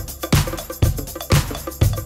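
Upbeat background music with a steady drum beat, about two beats a second.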